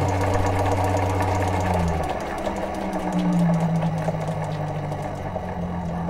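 Home-built 12-volt Adams-type pulse motor driving a small pressure water pump through a gear reduction, running with a steady mechanical hum and fast clicking. About two seconds in, the hum changes pitch and grows a little quieter as the motor's speed is turned down from full.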